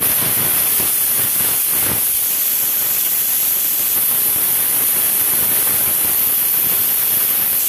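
Aluminium pressure cooker whistling: a loud, steady hiss of steam jetting out past the weight valve on the lid. This is one of the whistles counted to time the cooking.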